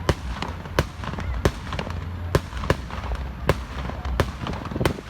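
Fireworks going off in a display: a string of sharp cracks and bangs, about one every half second and unevenly spaced, over a low rumble.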